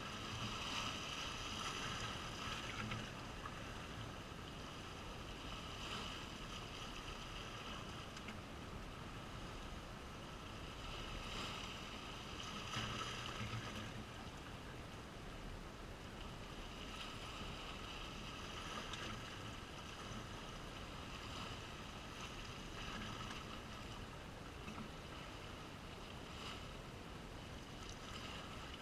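Small sea waves washing and splashing over shoreline rocks, a steady wash of water noise. A faint pitched sound swells and fades several times over it.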